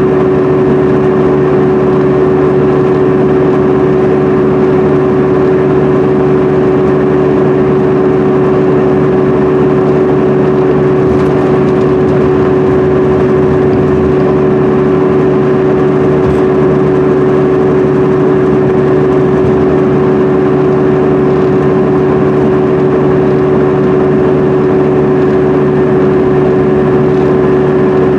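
The cabin sound of a 2010 MCI D4500CL coach cruising at highway speed. Its Cummins ISM diesel and Allison B500R automatic drivetrain give a steady drone that holds one pitch, under a constant hiss of tyre and road noise.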